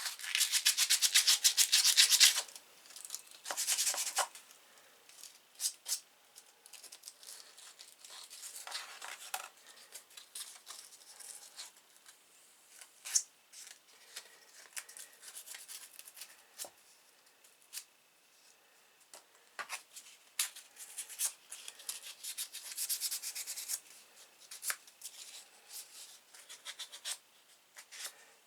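A small pocket knife's steel blade rubbed by hand with fine abrasive, in bursts of rapid back-and-forth strokes, loudest in the first two seconds and again past the middle, with scattered light clicks between bursts.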